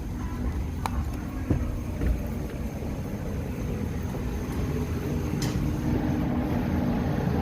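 Steady low rumble of airport boarding-bridge and parked-airliner ambience, with a faint steady hum and a few light knocks and clicks scattered through it.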